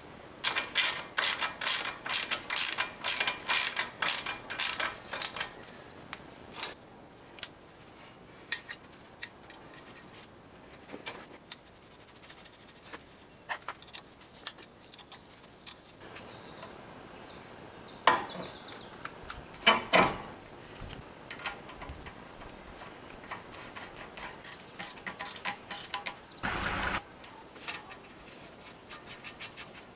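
Hand ratchet wrench clicking in quick strokes, about three a second, for the first five seconds as nuts are tightened on the front suspension and axle hub. After that come scattered ratchet clicks and metal clanks of tools and parts, with a louder cluster about eighteen to twenty-one seconds in.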